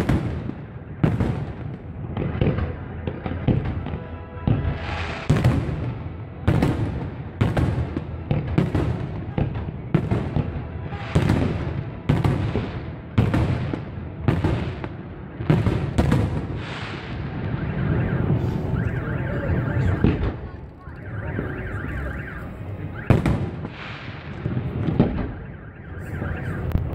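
Fireworks display: aerial shells bursting in a long run of loud bangs, roughly one a second, each with a rumbling tail. Past the middle the bangs thin out and a steady held tone comes through for several seconds, then the bangs pick up again near the end.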